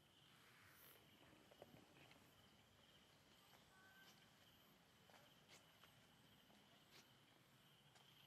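Near silence: a faint, steady insect drone with a few soft, scattered clicks.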